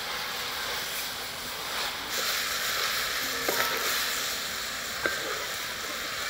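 Instant noodles and greens sizzling in a wok as they are stir-fried with a wooden spatula. The sizzle grows stronger about two seconds in, with a few sharp taps or scrapes of the spatula against the pan.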